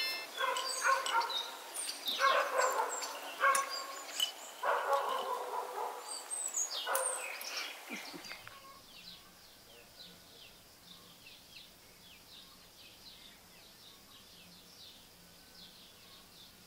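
A dog barking, a bark every second or so, with small birds chirping. After about eight seconds the barking stops and only faint high chirping remains.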